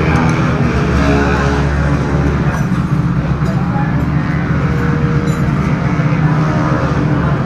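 Motorcycle engine running at a fairly steady pitch.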